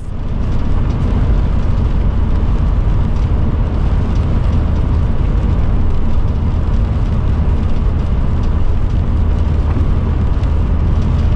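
Steady road and engine noise inside the cab of a vehicle driving on a wet highway. It is loud and heavy in the low end, with no change in pace.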